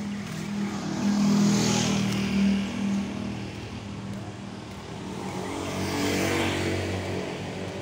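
Two motor vehicles driving past one after the other, each engine hum with tyre noise swelling and then fading, the first about a second in and the second near the end.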